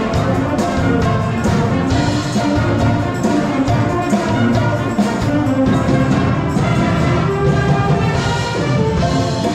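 School brass band playing live, trumpets, trombones and sousaphone over a steady beat.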